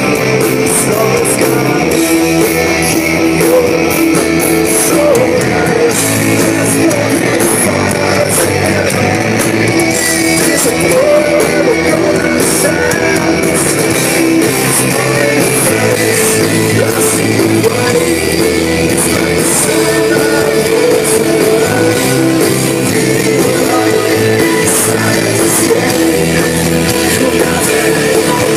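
Rock music with electric guitar and drums playing steadily.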